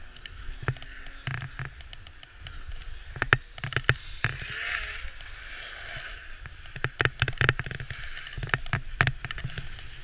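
Snow scraping and hissing under a board sliding down a groomed slope, with a low rumble and irregular sharp clicks and knocks. The scraping swells for a moment about halfway through.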